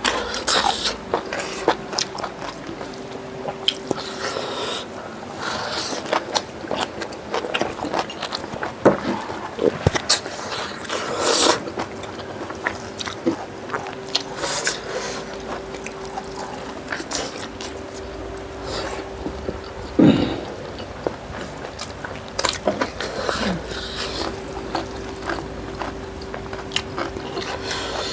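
Close-miked eating of chicken and rice by hand: irregular wet chewing, biting and mouth smacks, with a faint steady hum underneath.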